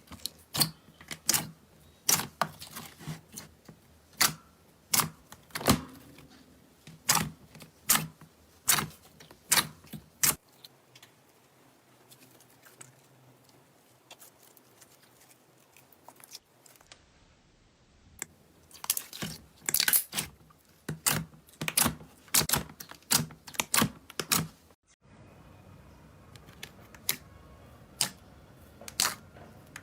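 Slime being squeezed and poked, giving a run of sharp clicking pops, one to three a second, that thin out for several seconds in the middle.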